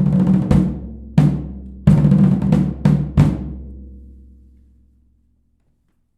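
Marching drums finishing a cadence: snare rolls and sharp accented hits over deep drum strokes, ending on a last hit about three seconds in that rings out and fades away.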